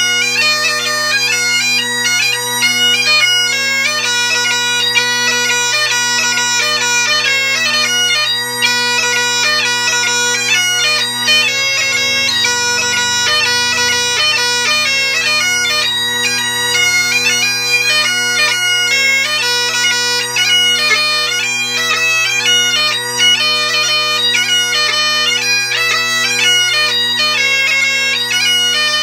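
Great Highland bagpipe playing a fast competition tune: the steady drone hum under a quick, continuously moving chanter melody.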